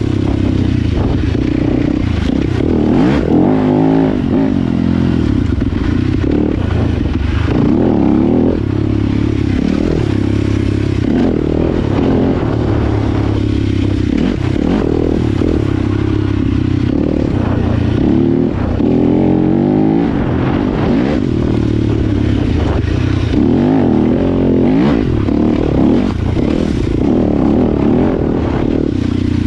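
Dirt bike engine revving up and dropping back repeatedly as it is ridden hard through the gears, with rattling and scraping from the bike over rough ground.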